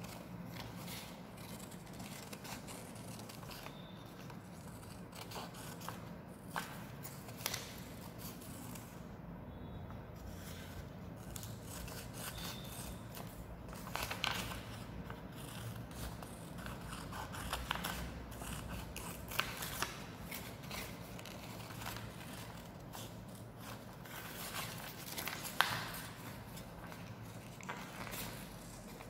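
Scissors cutting through craft paper in many short, irregular snips as a shape is cut out along a drawn outline.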